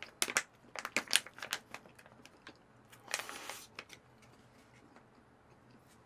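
Crinkling of a small plastic food pouch holding a peeled egg as it is handled and squeezed: a cluster of short crackles in the first two seconds, then a longer rustle about three seconds in.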